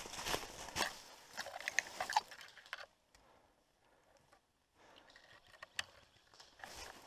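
Footsteps crunching through dry leaf litter. They stop about three seconds in for a second or two, then start again more softly.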